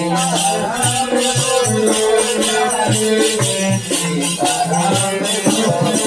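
Instrumental interlude of a devotional bhajan: a hand drum beats a steady rhythm under rattling percussion and a sustained melody line.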